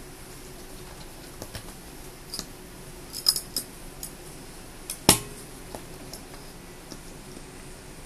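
Scattered small clicks and taps of a flashlight tailcap and its reverse clicky switch being handled and fitted together, with a cluster of clicks about three seconds in and one sharp, loudest click about five seconds in.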